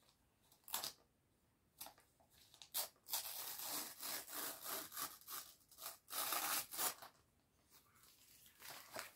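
Christmas wrapping paper rustling and crinkling in short crackles as a wrapped present is handled: a few separate crackles at first, then about four seconds of busier rustling, a short pause and more near the end.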